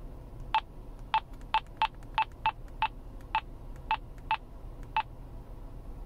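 Handheld walkie-talkie beeping at each button press, about eleven short beeps of the same pitch at uneven spacing, as the channel is stepped away from one already in use by someone else.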